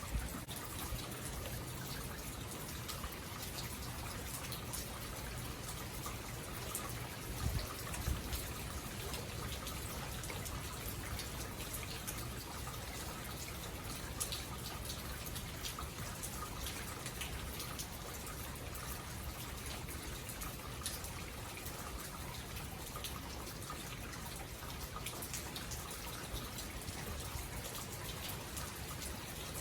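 Steady rain falling, with many small drop ticks scattered through it and a couple of low thumps about seven to eight seconds in.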